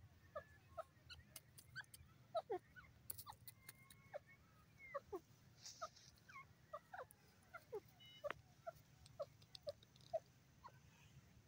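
Grey francolin giving many soft, short whistled notes in quick succession, several sliding downward in pitch, with faint clicks between them.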